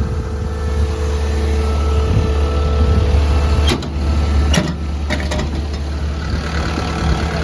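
Cat 313F excavator's diesel engine idling steadily, with three short sharp knocks about half-way through.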